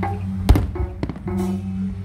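Music with steady held low tones, broken by a sharp firework bang about half a second in and a fainter crack about a second in.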